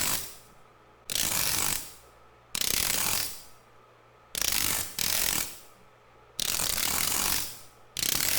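AI-generated sound effect playing back: a harsh mechanical clatter in repeated bursts, each starting suddenly and fading over about a second, about one and a half seconds apart.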